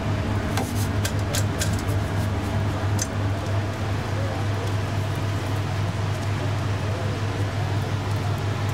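Steady low mechanical hum over an even noisy background, with a few sharp clicks in the first three seconds.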